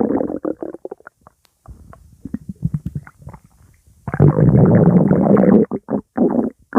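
A hungry stomach growling. A loud rumbling growl fades out at the start, fainter broken gurgles follow, and a second long loud growl comes about four seconds in, breaking into short gurgles near the end.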